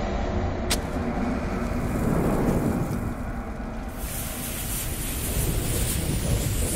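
Sound effects for an animated burning-bomb logo: a steady low rumble with one sharp click about a second in, then a fiery hissing and crackling joins about four seconds in as flames sweep in and the fuse burns.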